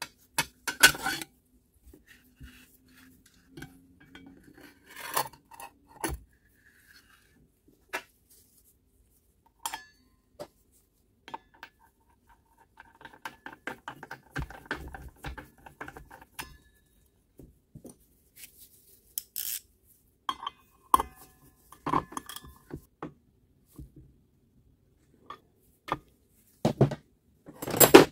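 Irregular metallic clinks, clicks and knocks from hand-handling a cordless circular saw during reassembly: the steel blade is seated on the arbor and a socket is set on the blade bolt. A run of small quick clicks comes around the middle, and the loudest knocks come near the end as the saw body is turned over on the wooden table.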